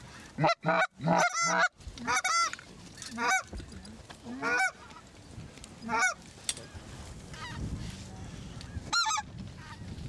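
Hand-blown goose calls giving loud, close honks and clucks: a quick string of them in the first couple of seconds, then single honks spaced a second or more apart, and a final short burst near the end, calling to incoming geese.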